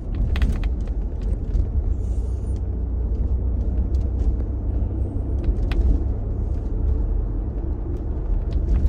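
Ford Bronco driving, heard from inside the cabin as a steady low road rumble, with irregular sharp clicks and pops from the molded-in-color hard top. The owners apparently trace the clicking to a metal locating pin knocking in the hole in the top that it slides into.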